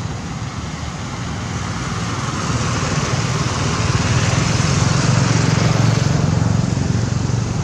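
Steady engine hum and road noise of a motor vehicle, growing louder from about two seconds in to a peak around five to six seconds, then easing slightly.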